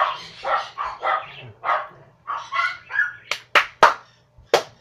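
A man coughing and gagging in short, harsh bursts, about two a second, as dry ground cinnamon catches in his throat. Near the end come four sharp, short cracks.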